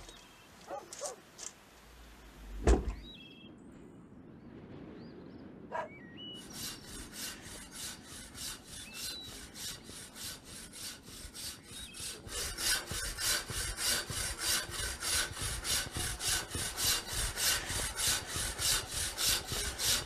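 Hand saw cutting a block of talc (soapstone) clamped in a vise, in steady back-and-forth rasping strokes about two or three a second that grow louder about halfway through. Before the sawing starts, a door, a few steps and one loud knock a few seconds in.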